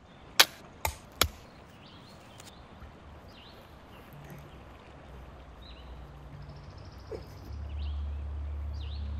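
Hatchet chopping into a standing log: three sharp strikes in the first second and a half. Afterwards a quiet outdoor background with a few faint chirps and a low rumble toward the end.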